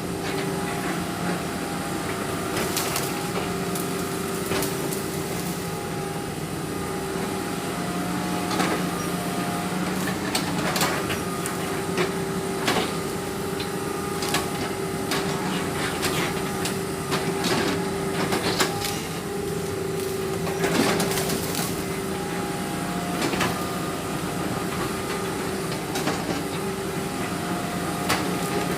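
Excavator diesel engine running steadily while it skids logs, with frequent short knocks and clanks, more of them around the middle.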